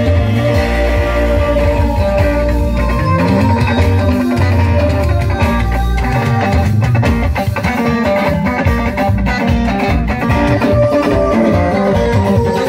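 Live band playing: electric guitars over bass and drums.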